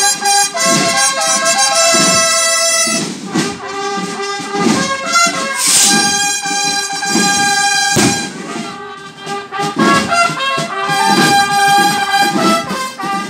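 Trumpets of a street band playing a loud fanfare, with drum beats underneath and a sharp bang about eight seconds in.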